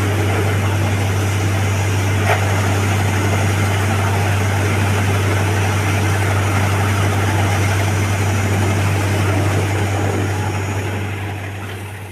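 Borewell drilling rig running steadily: a strong, unchanging low engine drone under a dense wash of machine noise, fading out near the end.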